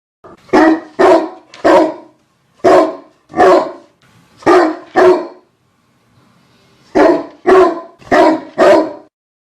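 A dog barking: about eleven loud, short barks in quick runs, with a pause of about two seconds in the middle.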